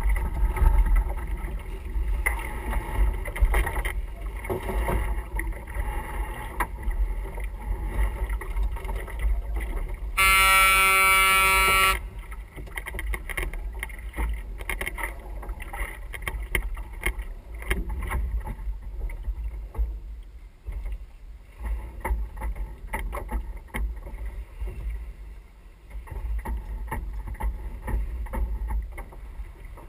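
Wind rumbling on the microphone aboard a sailing yacht under way, with scattered clicks and knocks of gear. About ten seconds in, a single loud, steady horn blast sounds for nearly two seconds.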